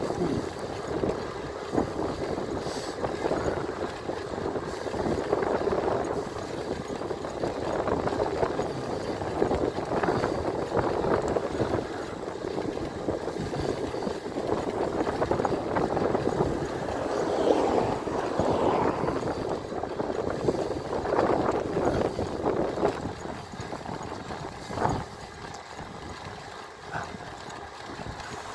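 Riding noise of an electric bike on a road: a steady, rushing noise that rises and falls, with frequent small knocks and rattles from the bike over the road surface.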